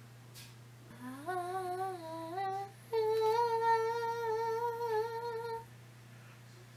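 A person humming two notes: a short wavering note that rises, then a longer, higher note held steady for about two and a half seconds.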